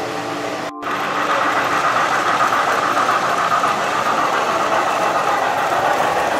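Model freight train of boxcars rolling past on three-rail O-gauge track: a steady rumble of wheels and running gear that starts abruptly under a second in.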